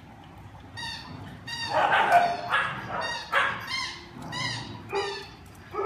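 Dog barking repeatedly: about seven short, high barks spread over some five seconds, the loudest about two seconds in.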